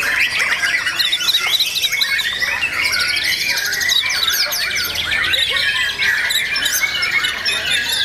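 White-rumped shama (murai batu) song: a dense, unbroken run of whistles, sliding notes, rapid trills and harsh chattering calls, with other shamas singing over one another.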